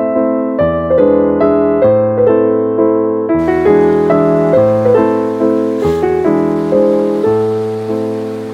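Background piano music: a continuous run of gently struck notes over a low bass line.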